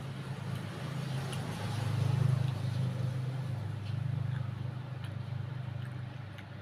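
A motor vehicle's engine running close by, a low steady rumble that swells about two seconds in as it passes, with a few faint clicks over it.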